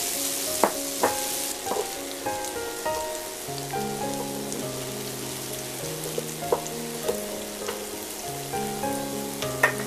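Diced onions and carrots sizzling in a nonstick frying pan, the sizzle strongest in the first second or so, while a wooden spoon stirring them now and then knocks against the pan.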